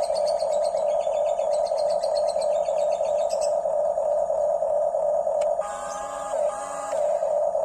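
Huina 1569 RC bulldozer's electric drive motor and gears giving a steady whine. Near the end the whine briefly drops out and two short lower, shifting whines take its place.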